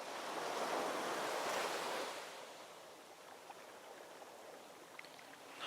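A rushing hiss, louder for the first two seconds, then dropping to a low steady hiss with a few faint clicks.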